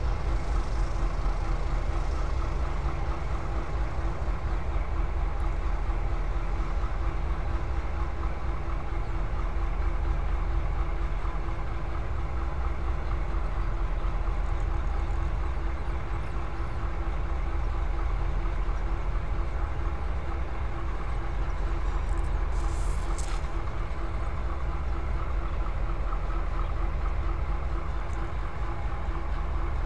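Steady engine idling, a low rumble with a constant mid-pitched tone, and a brief hiss about 22 seconds in.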